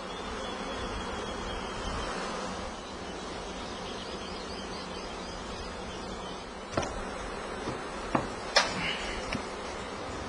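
Steady buzzing of an opened honeybee colony. In the second half, several sharp knocks from the wooden hive boxes and queen excluder being handled, the loudest about three quarters of the way through.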